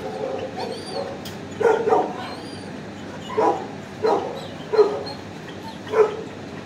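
Kennel dog barking in short single barks, about six of them roughly a second apart, the later ones the loudest.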